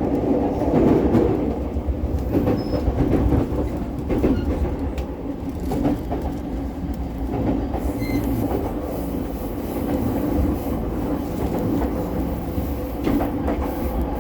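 Inside a JR Chuo-Sobu Line commuter train car running between stations: a steady rumble of the car with the wheels clicking over the rails.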